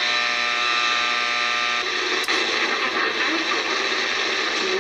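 Shortwave receiver audio from a Kenwood TS-850S tuned around 7.3 MHz by its hand-turned encoder: hiss and static with several steady whistling tones, which drop away about two seconds in as the frequency changes. A single click comes just after that.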